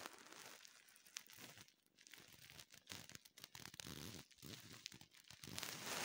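Faint, irregular rustling and crinkling with scattered small clicks, swelling louder near the end.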